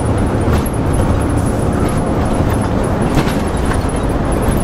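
Inside a bus on the move: steady engine and road rumble, with a few short clicks or rattles from the body.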